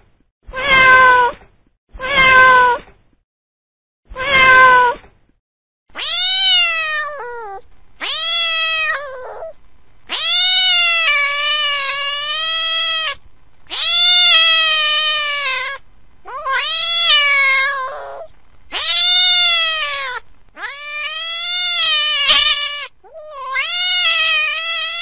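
Domestic cat meowing: three short meows in the first few seconds, then a string of longer, drawn-out meows, each rising and falling in pitch.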